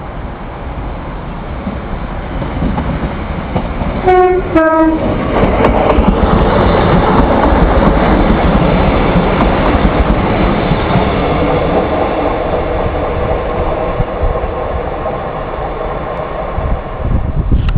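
Diesel multiple unit passenger train sounding its two-tone horn, two short notes with the second lower, about four seconds in. It then runs past close by, the engine and wheels on the rails loud at first and slowly fading.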